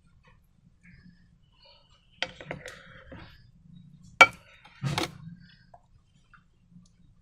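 Containers and utensils being handled on a work surface: a few clicks and clinks about two seconds in, one sharp click a little after four seconds, and a knock about five seconds in.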